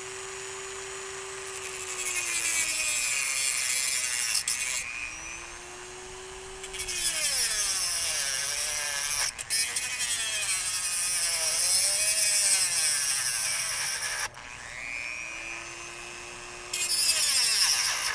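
Dremel rotary tool cutting through a metal swage clamp on a CV joint boot. The motor whines between three spells of harsh grinding as the wheel bites the clamp, the longest in the middle.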